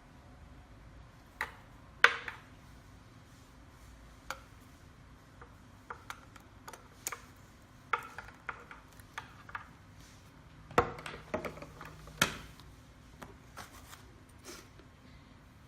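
Handling noise from unpacking iriscope parts from a metal case: scattered clicks, knocks and light rubbing at irregular intervals, the sharpest knocks about two seconds in and again around eleven and twelve seconds in.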